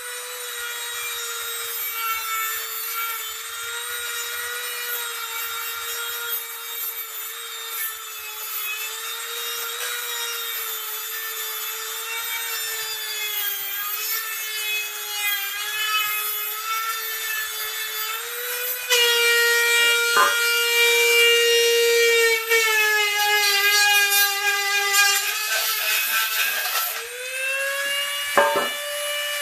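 Dremel rotary tool with a flap-wheel sanding attachment running steadily, grinding powder coat out of the ball-joint bore of a powder-coated A-arm. It makes a high motor whine that wavers slightly as the wheel bites, gets louder about two-thirds of the way through, and rises in pitch near the end as it comes off the work.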